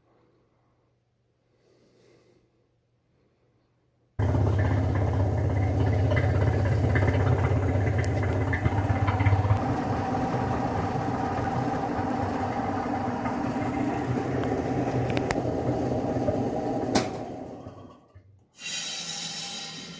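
A workshop machine's motor running steadily with a low hum, switching on abruptly after a few seconds of quiet and winding down after a click, followed by a brief hiss near the end.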